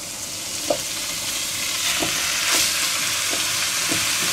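Raw minced meat sizzling as it hits a hot enamelled cocotte, the frying growing steadily louder as more mince goes in, with a few soft knocks.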